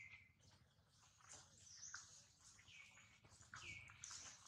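Faint, high-pitched animal calls: three or four short squeaks or chirps, each sliding down in pitch.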